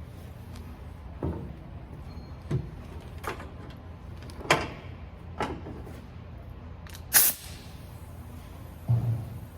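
A series of separate knocks and clunks, about seven, the loudest about seven seconds in, over a low steady hum.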